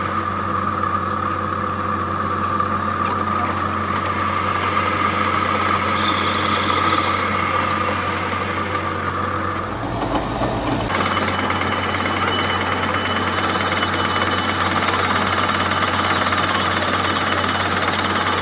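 Metal lathe running steadily while a tool bit turns a small metal part, a constant motor hum under a steady whine. The sound briefly changes about halfway through, then the same running resumes.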